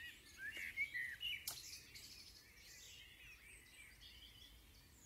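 Small birds chirping faintly in the background, with a cluster of short calls in the first two seconds and scattered fainter chirps after. A single sharp click comes about one and a half seconds in.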